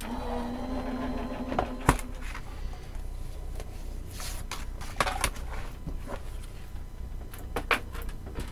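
Electric die-cutting and embossing machine's motor running steadily, then stopping about two seconds in, with a sharp clack just before it stops. After that, clear plastic cutting plates are handled and lifted apart, with scattered clicks and taps.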